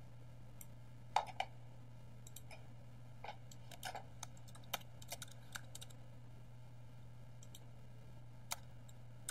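Scattered computer keyboard keystrokes and clicks: a pair about a second in, a run between about three and six seconds, and one more near the end. A steady low hum runs underneath.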